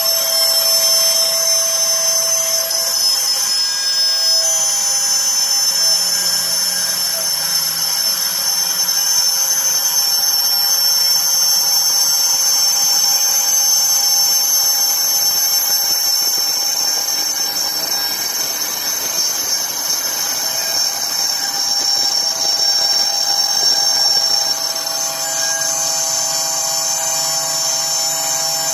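3-axis CNC machine running: a steady high whine of several tones, which shift slightly about four seconds in and again near the end.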